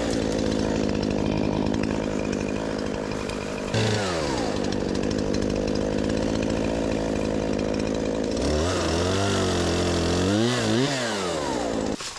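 Poulan two-stroke chainsaw running at high speed, probably cutting a limb, with one quick dip and recovery in engine speed about four seconds in. Near the end it is revved up and down several times, then it cuts off suddenly.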